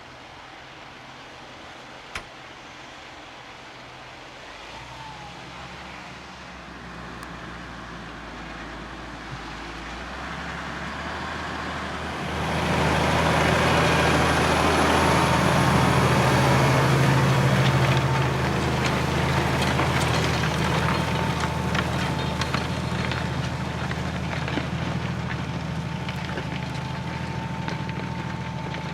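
Farm tractor engine working under load, growing louder as it approaches, loudest for about six seconds in the middle, then slowly fading as it moves away, with a faint whine in the later part.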